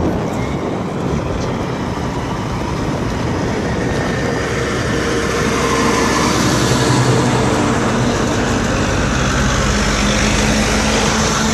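An engine runs steadily nearby over a constant rush of noise, and its low hum comes in and grows stronger from about five seconds in.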